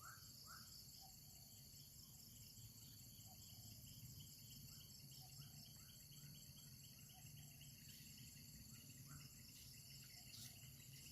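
Faint outdoor insect chorus: a steady high trill, typical of crickets, with short chirps coming every second or so.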